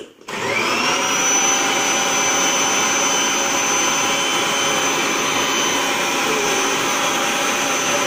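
Kirby Avalir vacuum cleaner's motor switching on, whining up to speed within about half a second and then running steadily with a high whine. Its floor nozzle is pressed against a cardboard box, sucking on it.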